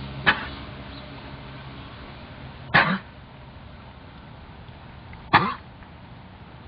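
A horse coughing while trotting: three short coughs about two and a half seconds apart.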